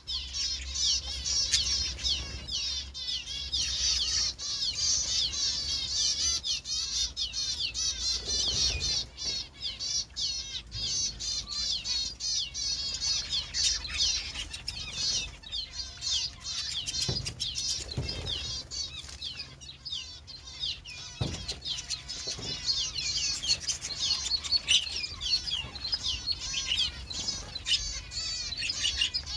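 A group of small pet birds chirping continuously, with many quick, high tweets overlapping throughout. A few short knocks come past the middle.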